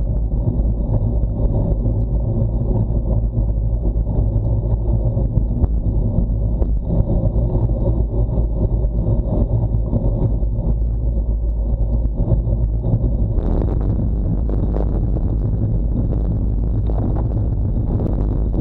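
Wind buffeting and road rumble on a bicycle-mounted action camera's microphone while riding a road bike at around 25 km/h, with harsher crackling bursts in the last few seconds.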